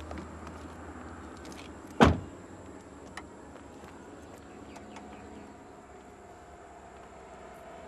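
A car door slammed shut once, a single sharp thud about two seconds in, followed by faint steady background noise.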